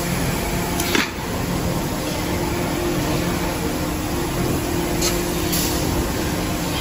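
Steady running noise and hum of a CNC metal spinning machine for cookware, with a sharp clack about a second in.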